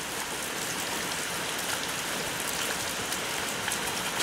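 Steady rain falling: an even hiss with fine scattered patters of drops.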